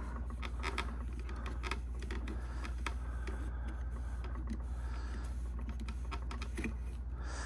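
VHS tape-cleaning machine winding a moldy videotape while a tissue is held against the tape to wipe off mold and dirt: a steady low motor hum with rapid, irregular fine ticking of tape and tissue rubbing.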